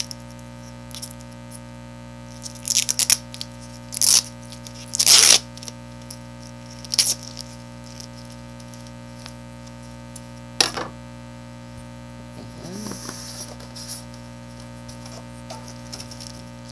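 Scattered knocks, clacks and rustles from handling a monitor's round plastic stand base and its packaging, with one longer scraping rustle about five seconds in and a softer rustle later. A steady electrical hum runs underneath.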